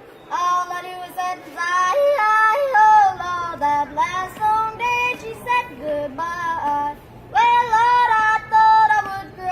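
A high-pitched singing voice without words, a run of short notes jumping up and down in pitch in a yodel-like way, pausing briefly about seven seconds in before a few more held notes.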